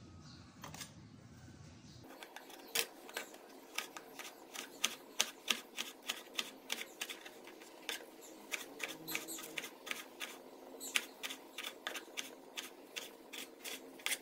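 Cleaver slicing tomatoes on a plastic cutting board: a quick, uneven run of sharp taps, about three a second, as the blade strikes the board with each cut. It starts about two seconds in.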